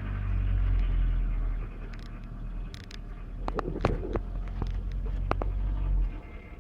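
Audi A6 C5's 2.4 V6 petrol engine (ALF) running with a heavy low rumble and a few sharp knocks around the middle; the rumble drops away about six seconds in. The engine knocks and shakes badly and lacks power, and the owner hears the noise coming from behind the timing belt covers, cause not yet known.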